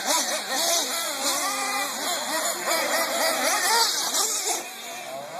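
Several nitro RC truggy engines racing at once, each one's high-pitched note rising and falling as it revs up and backs off.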